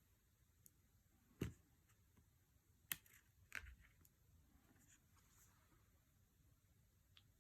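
Oracle cards being handled during a flip-through: three soft taps and clicks of card on card, about a second in, three seconds in and shortly after, with a short rustle on the last. Otherwise near silence.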